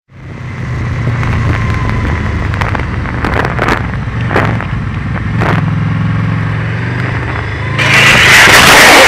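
Honda VFR motorcycle's V4 engine running steadily at low speed, heard from on board, with a few sharp clicks. About eight seconds in, a loud harsh scraping rush takes over as the bike goes down and slides on the road in a low-speed crash.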